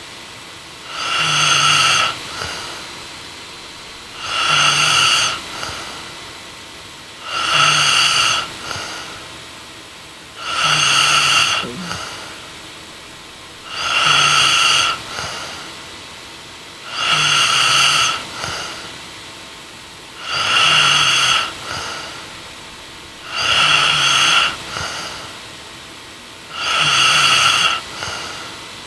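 A sleeping woman snoring in a steady rhythm: a loud snore about every three seconds, nine in all, each followed by a brief softer breath.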